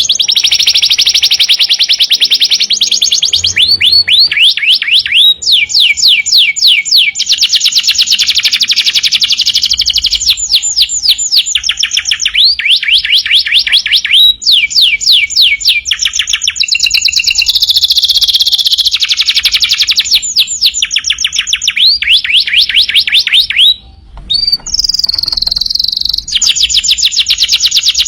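Domestic canary singing in full, continuous song: long rapid trills of repeated falling notes, switching to a new phrase every second or two, with a short break about 24 seconds in.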